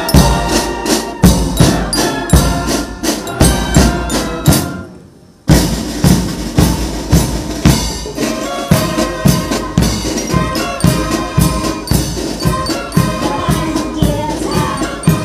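Music with a steady drum beat. It fades low about four and a half seconds in and cuts back in abruptly about a second later.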